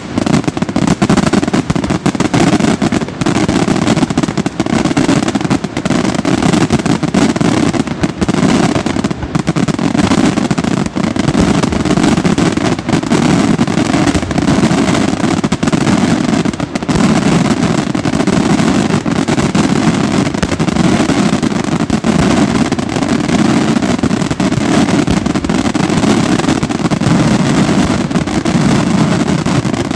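Aerial fireworks shells and crackling stars bursting in a loud, continuous barrage, the booms and cracks running together with no pause.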